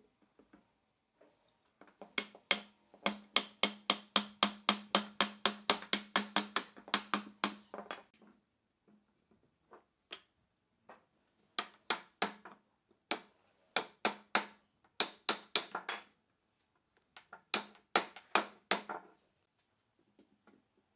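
Steel hammer striking a wooden joint to drive a stretcher's tenon home into a table-leg mortise: a long run of quick blows, about five a second, then several shorter runs with pauses between them.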